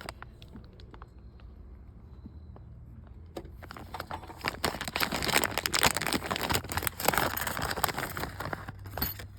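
Handling of the quick release's small hardware: crinkling and rustling with many small clicks of the screws. It starts about three and a half seconds in and runs dense until near the end, after a quieter start.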